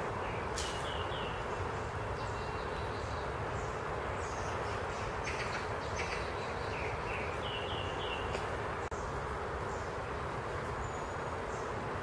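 Small birds chirping in short quick runs of high notes, busiest in the first eight seconds and sparser after, over a steady rush of wind through the forest leaves.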